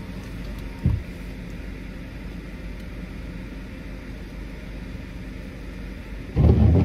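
Steady low rumble of an idling car heard from inside the cabin, with a brief knock about a second in. Near the end, a short loud vocal sound from a person as a nasal swab is taken.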